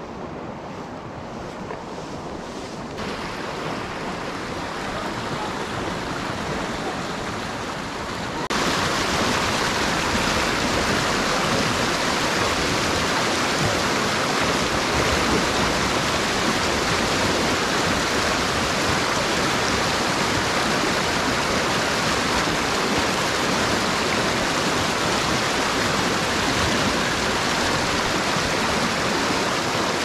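Rushing river water, a steady noise that gets louder suddenly about three seconds in and again about eight seconds in.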